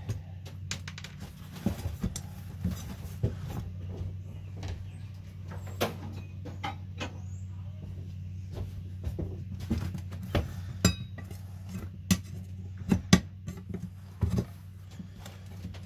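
Hand tools and metal parts clinking and knocking irregularly as the wheel and tire are worked off a wheelbarrow, over a steady low hum.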